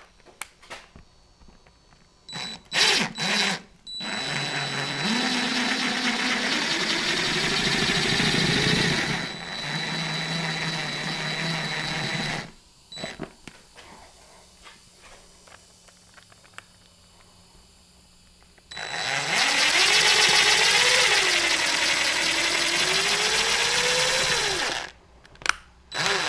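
Cordless drill driving two screws into wall studs: a few short trigger taps, then two runs of several seconds each, one early and one in the second half. The motor's pitch rises and sags as each screw bites and pulls in.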